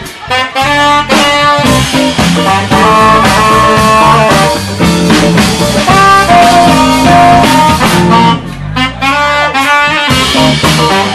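Saxophone playing a melodic solo line of held and moving notes with a live band.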